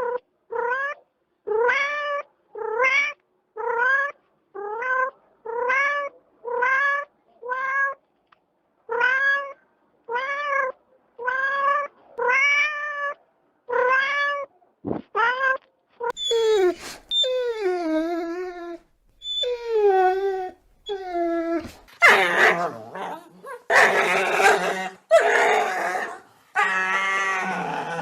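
A cat meowing over and over, short meows at about one a second, each rising in pitch. The cat then switches to longer meows that fall in pitch, and near the end to louder, harsher, rough yowls.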